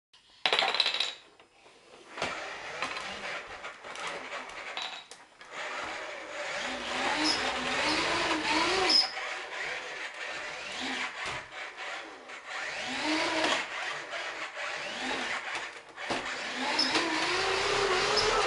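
Toy bulldozer's small motor whirring, its pitch rising and falling, with a few sharp knocks.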